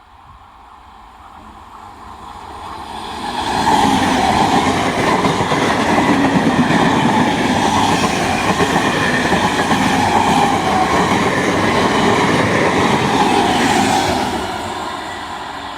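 A train passing close by on the rails. The noise builds over the first few seconds, stays loud for about ten seconds, then fades near the end.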